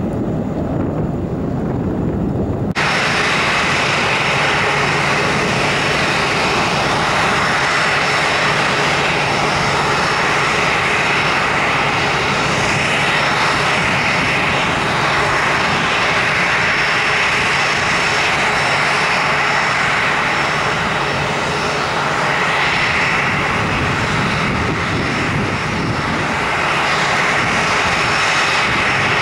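Boeing 737-800's CFM56-7B jet engines running steadily at low thrust as the airliner taxis, a constant hiss with a high steady whine. For the first three seconds, before a sudden change, only the low rumble of a jet climbing away is heard.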